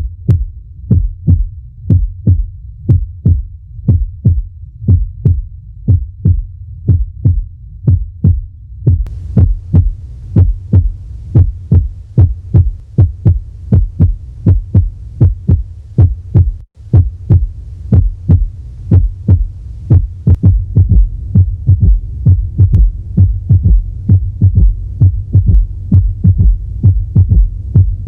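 Human heartbeat heard through a stethoscope, a steady run of low beats in a series of auscultation recordings; the recording changes about 9 s in and again near 17 s, and the beats come faster in the last third.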